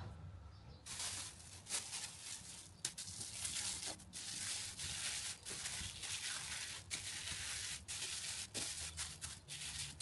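Thin clear plastic film crinkling and crackling as hands wrap it over and tuck it around a block of dough on a plate. It starts about a second in, with many sharp crackles.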